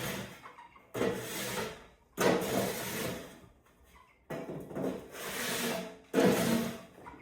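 Wood shavings and bedding being scraped out of a bird cage in repeated strokes, each about a second long with short pauses between them.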